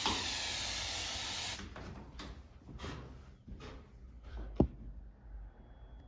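A burst of about two seconds from a can of aerosol smoke-detector test spray, hissing, then stopping. A few faint knocks follow, and about three seconds after the spray there is one sharp click.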